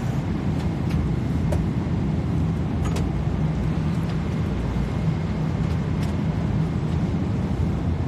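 Airliner cabin noise in flight: a steady low rumble with an even hum, with a few light clicks.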